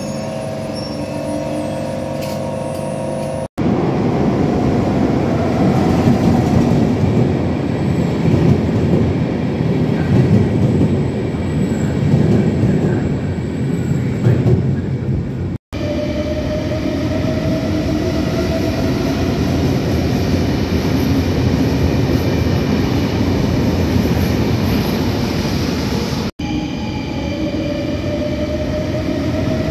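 Electric suburban trains running through a station. A loud rumbling stretch of a train moving along the platform is followed by a train with a rising whine as it picks up speed. The sound is broken by three abrupt cuts between shots.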